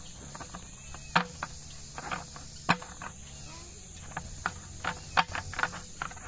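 Steady high-pitched insect chorus with irregular sharp clicks and knocks over it, the loudest about a second in and just before three seconds, and a quick run of them near the end.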